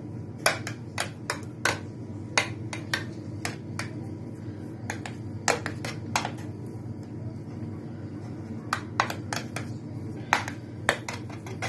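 Metal spoon tapping and scraping against a square stainless steel cake ring while spreading mashed potato in it: irregular sharp clicks, a few a second, with short pauses. A low steady hum sits underneath.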